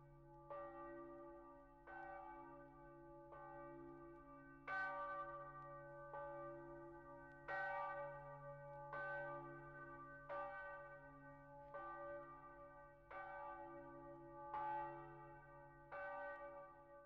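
Church bells ringing: a slow, even series of strokes about every second and a half, each one ringing on into the next, with a low hum note held underneath throughout.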